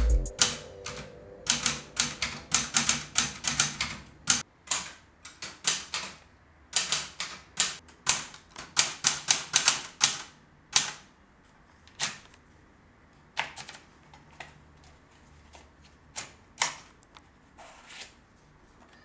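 Keys and typebars of a red Underwood Escolar manual typewriter striking the paper in quick runs of keystrokes, thinning to occasional single strikes after about eleven seconds.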